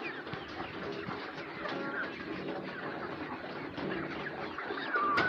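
A large flock of 14-week-old Lohmann Brown pullets clucking and chattering together, many overlapping calls at once. A sharp click sounds near the end.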